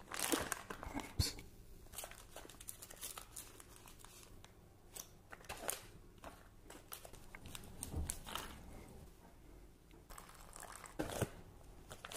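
Faint crinkling and rustling of plastic food packets being handled, torn open and emptied into a plastic tray, with scattered light clicks and taps.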